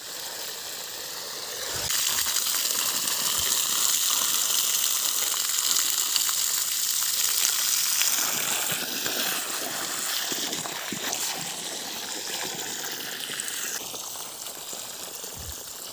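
Water gushing from a hose onto muddy soil, a steady rushing splash. It grows louder about two seconds in and eases off over the second half.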